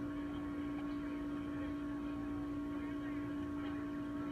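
Steady electrical hum with a faint even background hiss.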